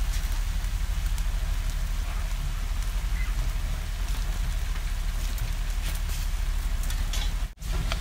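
Rat meat sizzling and crackling as it fries in a pan, the stir-fry stage before the coconut water is poured in, over a steady low rumble. The sound cuts out for a moment near the end.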